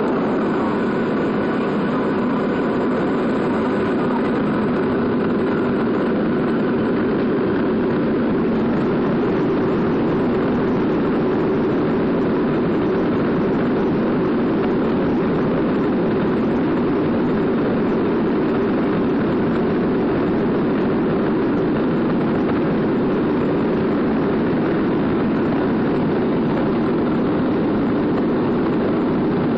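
Steady cabin noise inside a Boeing 737 taxiing, its jet engines running at taxi power: an even rushing hum with no rise or surge.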